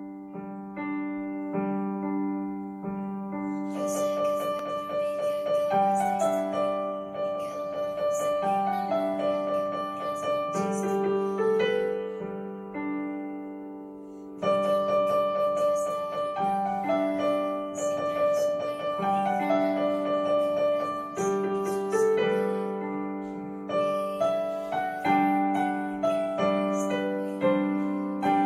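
Digital piano playing a slow, gentle melody over sustained low notes. The phrase dies away softly about halfway through, then starts again louder.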